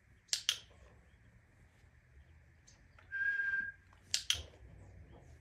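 A single short whistled tone, steady in pitch and lasting about half a second, is the loudest thing. Two quick sharp clicks come shortly before it and two more shortly after it.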